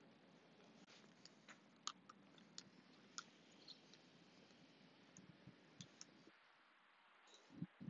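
Near silence: faint outdoor hiss with scattered soft ticks, and a short low thud near the end.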